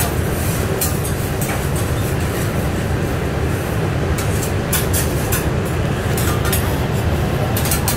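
Teppanyaki cooking at a steel hotplate: a steady low rumble and hiss, with metal spatulas scraping and tapping on the griddle a few times, most of them near the end.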